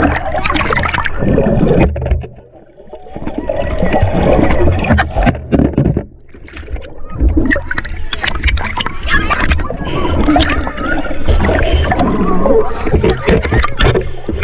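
Pool water splashing and churning as several swimmers thrash around, with muffled underwater bubbling and gurgling where the camera dips below the surface, and children's voices mixed in. The sound drops away briefly twice, about two and six seconds in.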